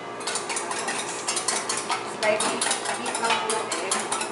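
Wire whisk beating eggs in a small stainless steel bowl: rapid, uneven clinking of the wires against the metal.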